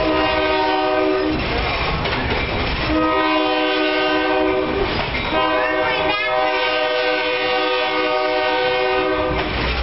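Diesel locomotive air horn blowing three blasts, a short one and then two longer ones, the last about four seconds long, each a steady chord of several tones. Under the horn, the train's running rumble and wheel clatter on the rails.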